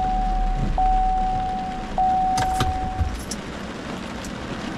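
Car's warning chime sounding a steady tone that restarts about every second and a bit, stopping about three seconds in, with a couple of sharp clicks just before it stops. Underneath is the hiss of heavy rain on the car.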